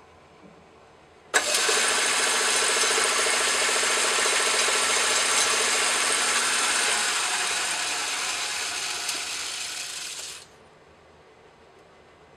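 Craftsman Atlas metal lathe starting suddenly about a second in and running with its four-jaw chuck spinning, while the tool turns down a half-inch square aluminium bar. The machine sound is steady with a whine of gears, eases off over its last few seconds, and then stops abruptly when the lathe is shut off.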